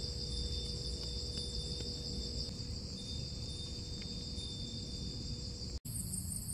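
A steady shrill chorus of insects trilling, with a faint low rumble beneath. Near the end it cuts out for an instant and a faster, pulsing insect trill takes over.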